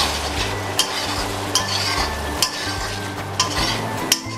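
Spatula stirring paneer curry with whisked yogurt in a kadai, scraping the pan about once a second over a steady low sizzle from the gravy on low flame.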